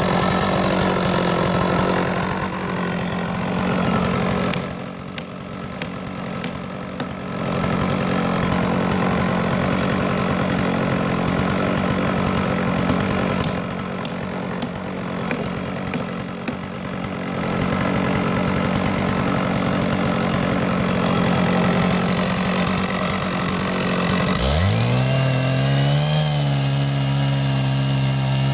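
Chainsaw mill's two-stroke chainsaw engine running steadily while cutting through a large log, dipping in loudness twice. Near the end the engine note changes: a lower note rises quickly and holds steady.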